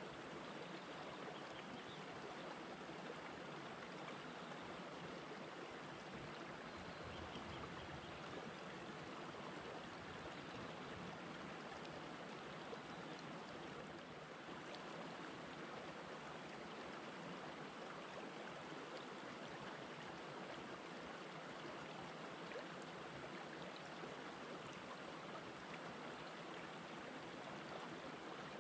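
Shallow rocky stream flowing among boulders: a steady, faint rush of water that does not change.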